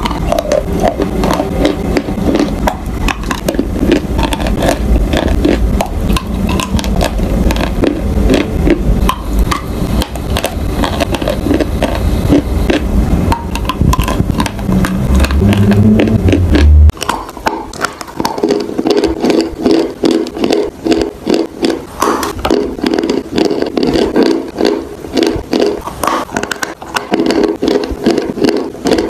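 Close-miked crunching and chewing of chalk lumps in the mouth: dense crackling and sharp cracks as the chalk is bitten and ground between the teeth. The sound changes abruptly about 17 seconds in, to a lighter, more clicky chewing.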